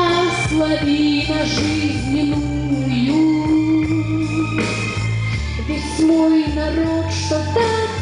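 A woman singing a slow song into a microphone over instrumental accompaniment with bass and drums, the voice holding long notes that slide between pitches.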